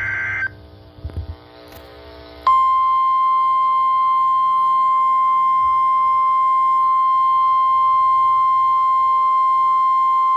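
NOAA Weather Radio emergency alert: the tail of a warbling SAME digital header burst, a short gap, then about two and a half seconds in the steady 1050 Hz Warning Alarm Tone starts and holds. This tone signals that a warning message is about to be broadcast.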